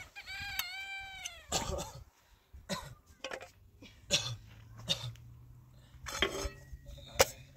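A single high-pitched animal call, rising then falling over about a second, followed by scattered sharp knocks and clicks and a low steady hum.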